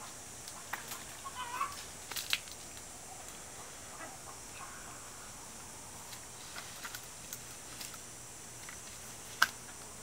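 Outdoor summer ambience: a steady high-pitched insect drone, with a short run of bird chirps early on and scattered light clicks. A single sharp click about nine and a half seconds in is the loudest sound.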